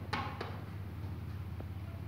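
Steady low electrical hum in a room. A brief scrape ending in a click comes a fraction of a second in, with a faint tick later.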